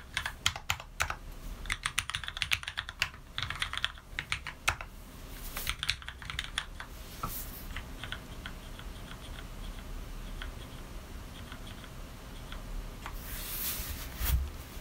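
Typing on an Anne Pro 60% mechanical keyboard with lubed Cherry MX Red linear switches on 62 g springs. The keystrokes come fast and dense for about the first half, then thin out to sparse, softer taps. Near the end there is a brief rushing noise and a single thump.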